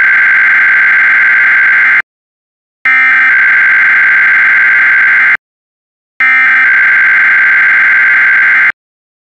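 Emergency Alert System SAME header: three bursts of digital data tones, each about two and a half seconds long, with a short silent gap between them. This is the encoded header that opens an EAS alert, here a Required Weekly Test.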